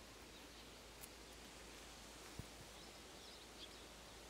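Near silence: faint outdoor background hiss, with one brief soft knock a little past halfway and a few faint high chirps near the end.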